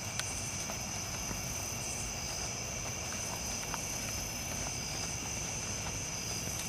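Steady high-pitched chorus of insects such as crickets, over a low steady rumble, with a couple of faint soft knocks.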